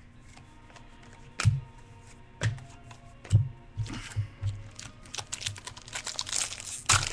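Light clicks and taps of trading cards being handled and flicked through by hand: a few single clicks, then a quicker run of small clicks near the end.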